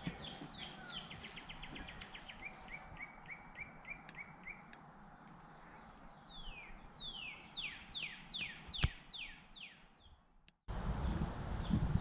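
A songbird singing: a few downward-slurred notes, then a quick run of short even notes, then a series of about eight clear whistles each sliding steeply down in pitch. A single sharp click near the end of the song, and a steady low outdoor rush after a brief cut.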